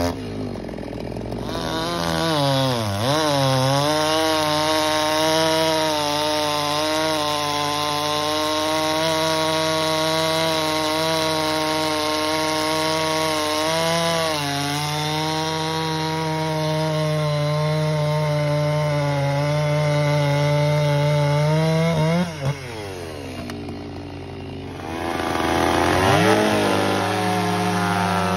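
Large two-stroke chainsaw cutting through a big log under load: the engine pitch sags as the chain bites, then holds steady through the cut with one brief dip. About three quarters of the way in, the engine falls off and goes quieter, then a second, older chainsaw revs up and starts cutting near the end.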